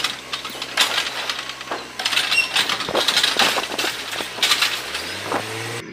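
Automated side-loader garbage truck emptying a wheeled cart into its hopper: the contents fall in with a long run of clattering knocks and crashes, then a low steady hum from the truck's engine and hydraulics near the end.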